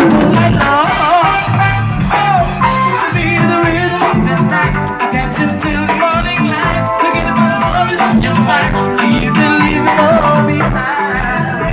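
Loud recorded music with singing, a shaker rhythm and a heavy pulsing bass line, played through a sound system during a sound check.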